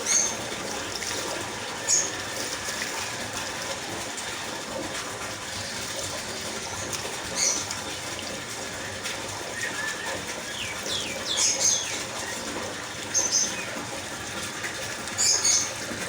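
Water running steadily as a ringneck parakeet bathes in it, with about six short bursts of the bird fluttering and splashing.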